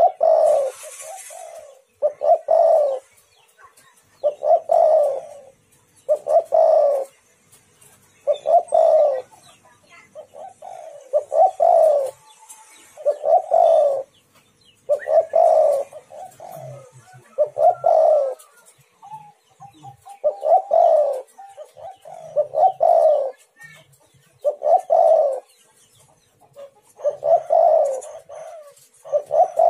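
Spotted dove (tekukur) singing its cooing song, a dozen or so repeated phrases about two seconds apart, used as a lure call to get other doves to answer.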